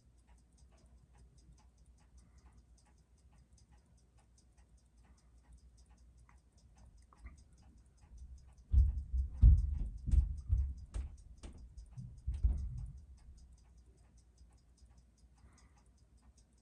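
Seiko 6139 automatic chronograph movement ticking in an even rhythm, its beat picked up through a timegrapher's microphone while the running-in movement holds a steady amplitude. Between about 9 and 13 seconds in, a run of low knocks and thumps sounds over the ticking.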